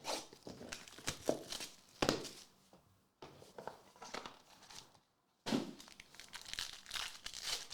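Plastic wrappers on trading-card packs being crinkled and torn open by hand, in three rustling stretches split by two short pauses.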